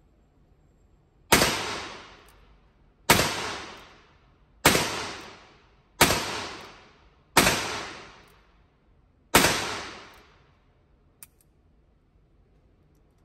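Six shots from a Ruger Speed Six revolver in 9mm, fired one at a time with the hammer cocked single action, spaced about one and a half to two seconds apart. Each shot rings on in the indoor range's echo, and a small click follows about two seconds after the last shot.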